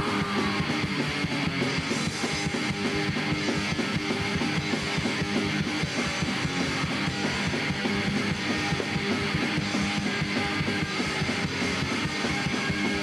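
Punk rock band playing live, guitar and drums, in an instrumental stretch without vocals.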